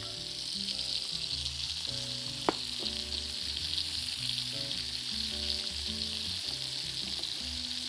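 Meat ribs sizzling in hot oil in a frying pan, a steady hiss, with a spatula quietly stirring a garlic-and-parsley dressing in a ceramic bowl.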